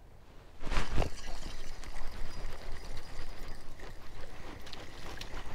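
Water splashing as a hooked rock bass thrashes at the surface while being reeled in, starting suddenly and loudly under a second in and continuing in smaller splashes.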